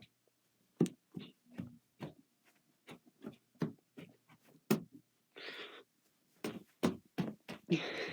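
Scattered light knocks and clicks at irregular intervals, with two brief rustling bursts in the second half.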